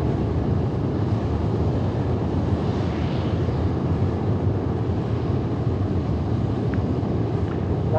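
Space Shuttle Main Engine, a liquid-hydrogen/liquid-oxygen rocket engine, firing at full run on a test stand: a loud, steady roar that holds unchanged throughout.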